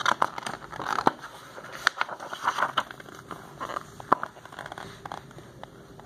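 Pages of a picture book being turned and handled: a run of irregular paper rustles, crinkles and sharp clicks.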